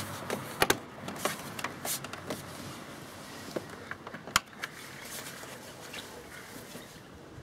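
Hands fitting cables and the plastic dash panel of a Honda CBF125 motorcycle: scattered light clicks and taps of plastic and cable, the sharpest about four seconds in.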